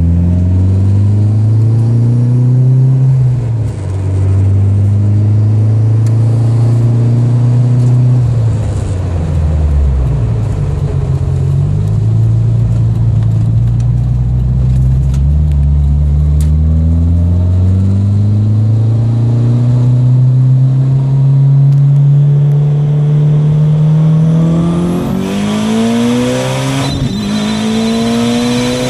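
Built 2.1-litre turbocharged Mitsubishi Lancer Evolution four-cylinder running at 27 psi of boost, heard from inside the cabin as it accelerates hard. The revs climb and drop back at each gear change, then make one long, slow climb, and near the end rise quickly again with a hiss over the engine.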